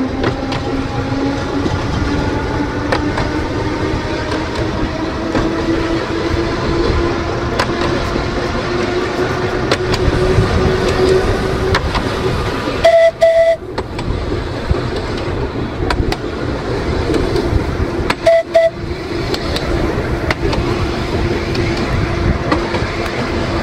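Electric tramcar on narrow-gauge track, its traction motors whining and slowly rising in pitch as it picks up speed over the rumble of the wheels. About 13 seconds in, and again five seconds later, it gives two short toots on its warning horn.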